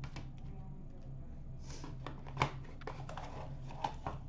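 Hands handling trading cards and hard plastic card holders: a few light clicks and taps with soft sliding of card stock, the sharpest click about halfway through, over a low steady room hum.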